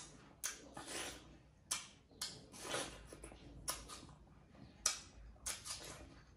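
Close-miked bites and chewing of juicy watermelon: irregular sharp, crisp clicks and wet chewing sounds, several in a row.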